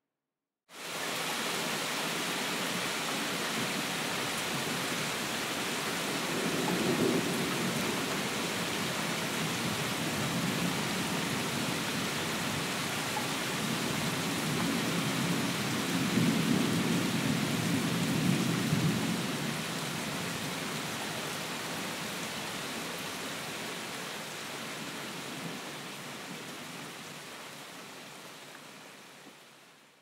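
Steady rain falling in a forest, with low rolling thunder swelling up about seven seconds in and again for several seconds from about fourteen seconds. The rain starts abruptly after a brief silence and fades out over the last few seconds.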